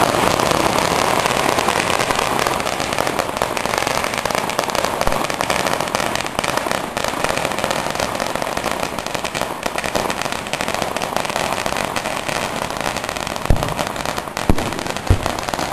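A long string of firecrackers going off close by in a continuous rapid crackle of pops, with a few louder single bangs near the end.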